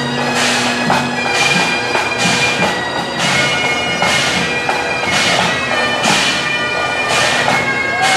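Bagpipes playing, with a regular beat of noisy strokes about every 0.8 seconds.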